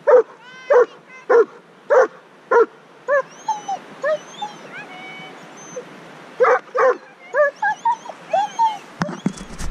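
A dog barking in a quick run of short barks, about two a second, then whining and yipping in high rising-and-falling cries, with a couple more barks partway through.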